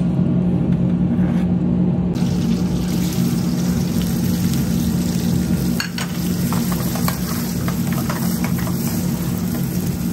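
Sliced red onions frying in hot ghee in a steel frying pan, a steady sizzle with scattered crackles and pops, louder from about two seconds in. A steady low hum runs underneath.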